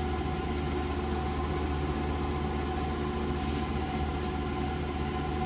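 A steady mechanical hum made of several held tones with a strong low drone, even in level throughout.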